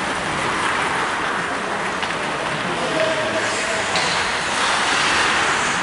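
Ice hockey rink ambience during live play: a steady hiss of skate blades on the ice mixed with spectators' voices murmuring, with a few faint stick-on-puck clicks.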